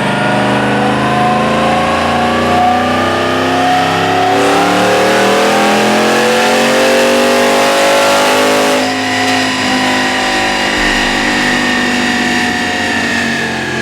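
Car engine revved up and held at high revs for several seconds, its pitch climbing slowly, then dropping back about nine seconds in to a lower, steady running note.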